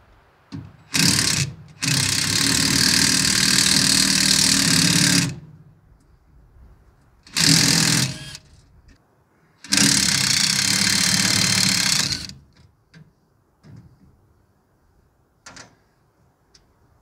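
Cordless impact driver hammering on bolts of an excavator's steel step plate, undoing them in four runs: a short burst about a second in, a run of about three seconds, another short burst, then a run of about two and a half seconds that stops near twelve seconds in. A few light clicks follow.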